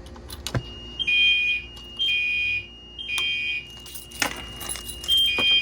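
Fire alarm system horns sounding in the temporal-3 evacuation pattern: three tones of about half a second each, a pause, then the next cycle starting, set off by turning the drill test key switch. A sharp click comes about half a second in, and a thin steady high tone runs under the pattern.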